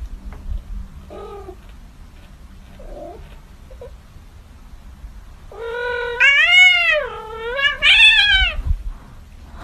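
Kitten meowing: a few faint short mews, then, a little past halfway, two long, loud meows that rise and fall in pitch.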